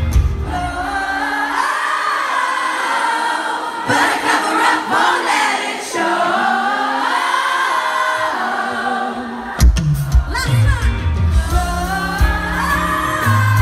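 Live pop song played by a band in a large arena, with a female lead vocal singing over it. About a second in, the bass and drums drop away, leaving the voice over keyboards. Near ten seconds the full band crashes back in.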